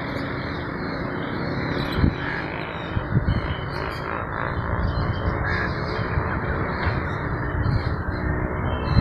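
Crows cawing now and then over a steady rushing background noise.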